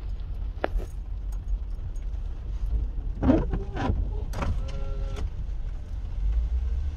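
Low steady rumble of a car heard from inside its cabin, with small rattles and clicks. There are a couple of louder knocks about three seconds in and a brief high squeal a second or so later.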